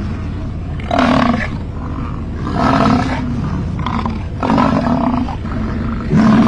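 American bison bellowing: a run of deep, roaring calls, each under a second long, repeated every second or two.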